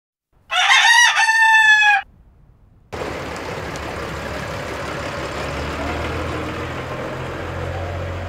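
A rooster crows once, loud, for about a second and a half. At about 3 s it gives way abruptly to the steady running of a New Holland tractor's diesel engine, with a low hum, as it hauls a trailer of round hay bales past.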